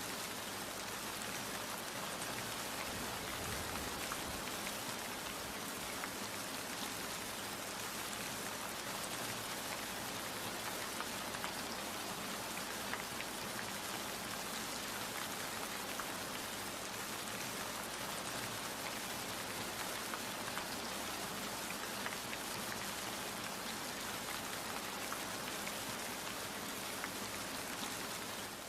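Steady rain falling on a surface, an even hiss with many small scattered drop ticks.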